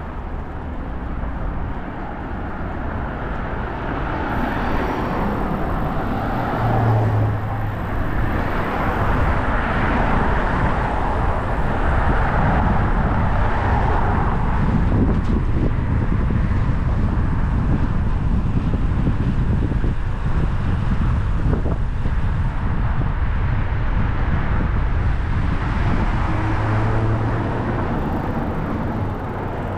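Wind rumbling on the microphone of a camera riding on a moving bicycle, with a steady rushing noise that swells a little partway through.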